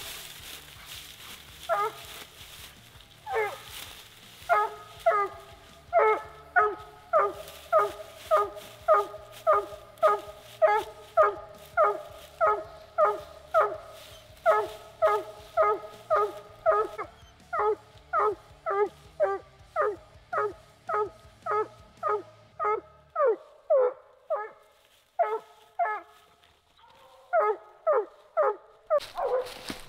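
Walker coonhound barking treed at the base of a tree: a steady run of pitched chop barks, about two a second, with a short thinning near the end. It is the bark coon hunters read as the dog having game up the tree.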